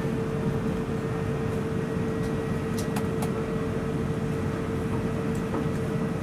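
Airbus A380 cabin noise at the stand: a steady low rush of air-conditioning and aircraft systems with a steady hum that cuts off suddenly near the end. A few faint clicks about halfway through.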